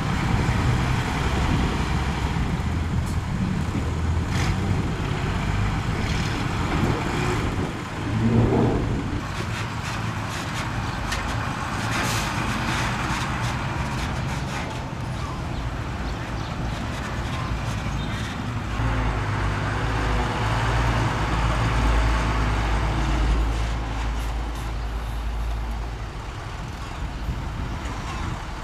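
Heavy diesel earthmoving machinery running under work, with scattered knocks; a short rising whine about eight seconds in, and a heavier, lower engine drone from about a third of the way from the end.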